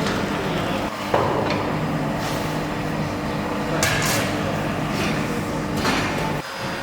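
A steady mechanical hum with a few sharp knocks and clatters over it; the hum drops away near the end.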